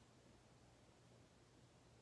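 Minka Aire Volterra ceiling fan running very quietly: a faint steady low hum.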